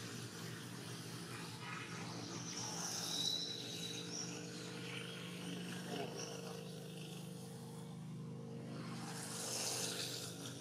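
Steady low mechanical hum, like an engine running, with a brief faint high chirp about three seconds in and a short hiss near the end.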